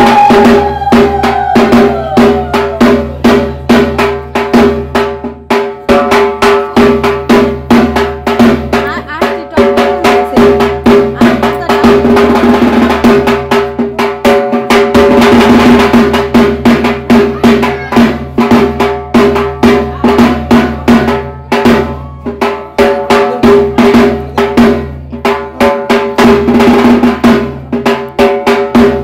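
Fast, continuous drumming, many strokes a second, over a steady droning tone.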